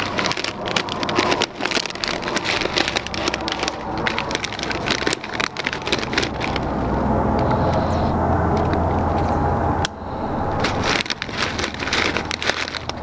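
Plastic bag of corn chips crinkling and crackling as it is handled and squeezed, with a steady low rumble in the middle that cuts off suddenly about ten seconds in.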